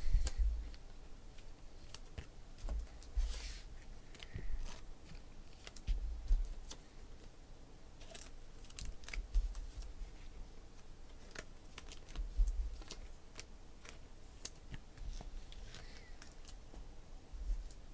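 2016 Panini Select football cards handled by hand: sliding and flicking card stock with many small clicks, a few brief hissing slides, and dull low thumps every few seconds.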